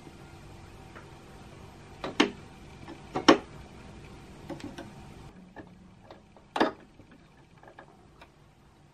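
Clicking of a Singer sewing machine's stitch dials being turned by hand: a few sharp clicks, the loudest about two and three seconds in and again past six seconds, with fainter ticks between.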